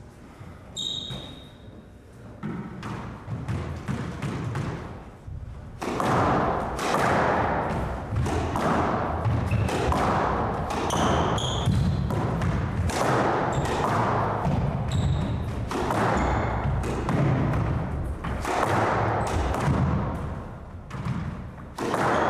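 A squash rally: the ball is struck by racquets and smacks against the court walls, with sharp knocks coming about once a second and growing dense about six seconds in. Players' feet pound the wooden floor, and shoes squeak briefly a few times.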